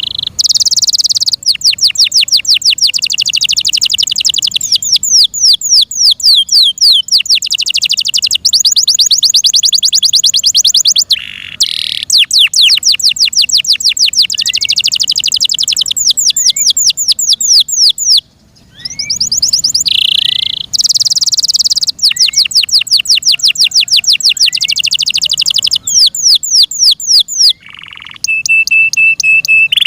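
F1 Yorkshire canary singing a loud song of rapid trills, each a fast run of repeated down-sweeping notes. There are short breaks about eleven and eighteen seconds in, and a steady held whistle near the end.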